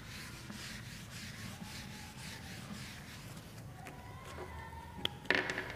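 Faint rubbing strokes of a marker pen on a whiteboard, about two or three strokes a second. A click comes about five seconds in, then a brief louder squeak just after.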